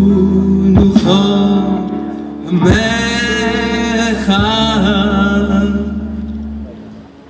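A man singing an Italian Jewish melody for a Hebrew liturgical poem through a PA, with live band accompaniment. He holds long, wavering notes, and the music fades toward the end.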